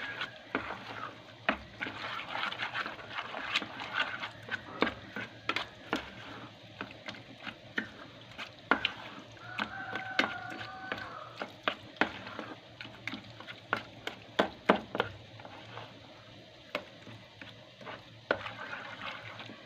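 A spoon stirring an oil-based mixture in a pot, knocking and scraping against the sides in irregular sharp clicks.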